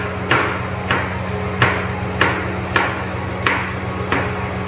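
Kitchen knife chopping carrots into thin strips on a plastic cutting board: sharp, even knocks of the blade on the board, about eight of them, roughly one every two-thirds of a second. A steady low hum runs underneath.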